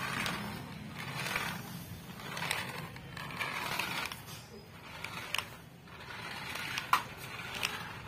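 Small battery-powered toy remote-control car driving over a tiled floor: its motor whirring and plastic wheels rolling and scraping in repeated surges of about a second each as it starts and stops, with a few sharp clicks in the second half.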